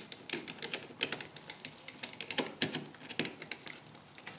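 Irregular light clicks and crinkles, several a second, from handling the pine frame bar on plastic sheeting while a corner of the frame is being screwed together.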